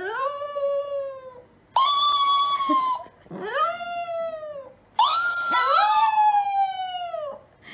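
Chihuahua howling: four long, drawn-out howls with short breaths between them, each sliding slowly down in pitch at its end.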